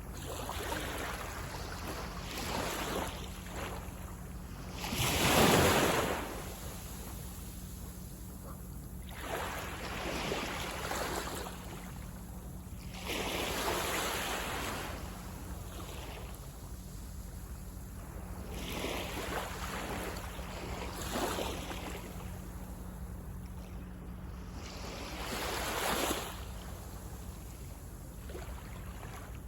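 Small waves breaking and washing up a sandy beach one after another, each surge swelling and fading every few seconds, the strongest about five seconds in. A steady low rumble runs underneath.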